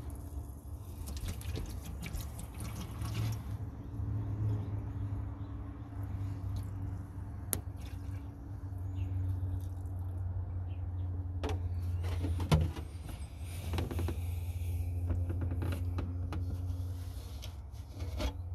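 Water poured from a one-gallon jug into a car's trunk-mounted ice tank, gurgling and splashing as the tank fills. A sharp click comes about seven seconds in, and a louder knock about twelve seconds in.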